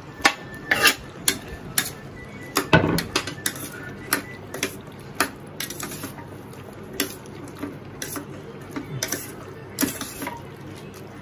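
A steel spoon clinking and scraping against the inside of a stainless-steel pressure cooker while chopped vegetables are stirred into tomato sauce: irregular knocks throughout, with a heavier one about three seconds in.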